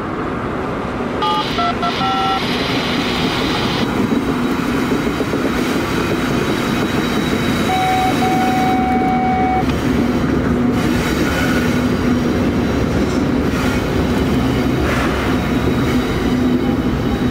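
Norfolk Southern freight train's diesel locomotives passing close by under power, a steady loud engine drone with wheels on rail. A few brief high tones sound about a second or two in, and another short tone around eight seconds in.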